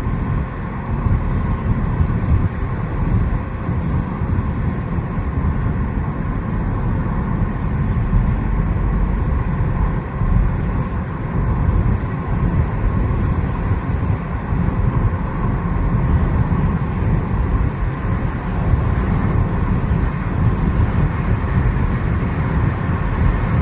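Hyundai i30 (PD) with over 300,000 km under way: steady road and running noise with a faint steady whine through it, the strange noise the owner hears from the driver's-side rear wheel.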